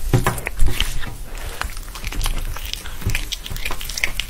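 Two cats chewing and biting at the same red chew treat: quick, irregular chewing and biting clicks, heaviest in the first second.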